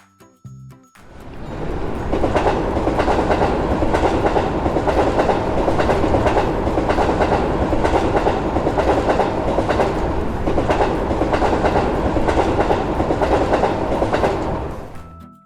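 A train passing, a steady rush with continual clacking of wheels over rail joints. It fades in about a second in and fades out near the end. A few short melody notes sound at the very start.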